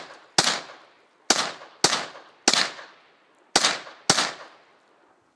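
Rifle fired six times in quick, uneven succession, each shot a sharp crack followed by a short fading echo.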